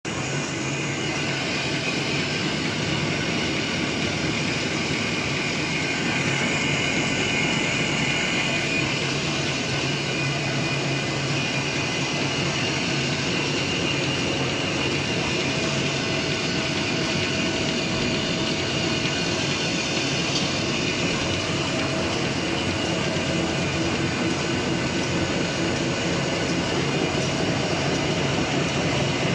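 Two-colour printing napkin folding machine (300 mm napkin size) running steadily: a dense, fast, even mechanical rattle of rollers and folding parts over a steady low hum.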